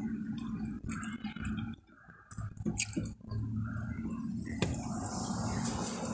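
Close-up eating sounds: chewing and mouth noises mixed with small clicks and scrapes of a plastic fork picking food from a takeout container.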